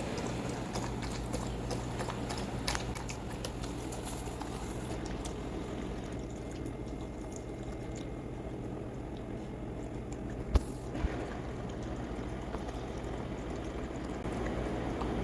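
A pot of dried pollack soup simmering, a steady bubbling hiss over a low hum, with small clicks and one sharp knock about ten seconds in.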